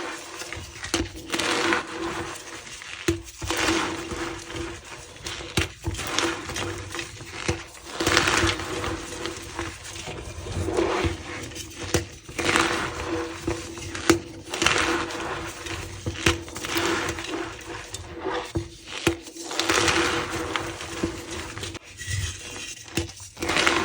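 Blocks of reformed gym chalk being squeezed and crumbled by hand, giving repeated crunching bursts with sharp cracks and squeaks, one every second or two.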